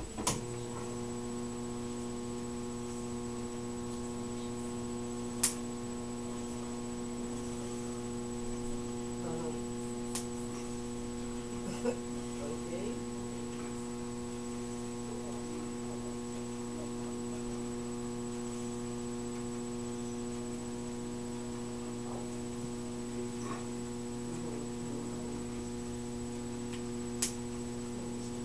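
Emergency-vehicle light bar switched on and running, giving a steady electrical hum that starts just after the opening. A few sharp clicks stand out, about five, ten and twenty-seven seconds in.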